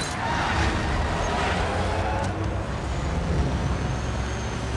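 A Peterbilt semi-truck running at highway speed: a steady low engine drone under rushing road and wind noise.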